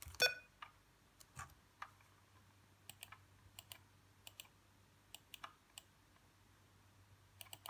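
Faint, irregular single clicks from computer input while working the menus, about two a second on average. The first click, just after the start, is the loudest.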